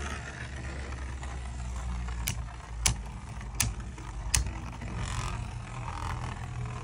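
Two Beyblade spinning tops whirring on a plastic surface, with four sharp clacks between about two and four and a half seconds in as they strike each other. A steady low hum runs underneath.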